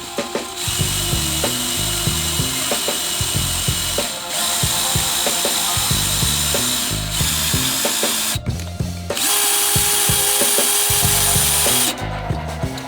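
Electric power drill running in three long stretches of several seconds each, with short breaks between them, a steady high whine over the drilling noise. Background music with a steady beat plays underneath.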